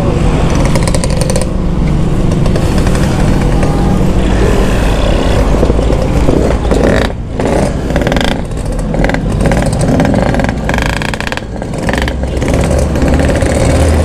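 Several motorcycle engines running at idle close by, among them a two-stroke Yamaha RX King.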